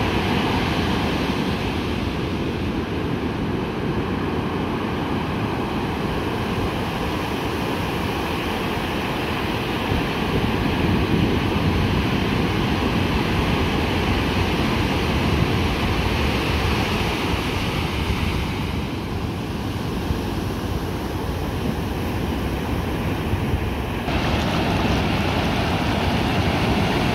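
Ocean surf breaking and washing in around a wader: a steady rush of waves whose hiss eases for a few seconds about two-thirds of the way through, then swells again.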